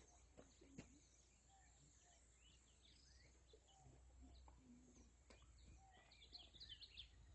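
Near silence with faint, scattered bird chirps and a few soft clicks over a low steady background hum.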